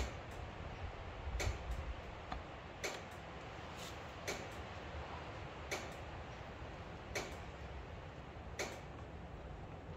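Sharp clicks repeating evenly about every one and a half seconds, with a few fainter clicks in between.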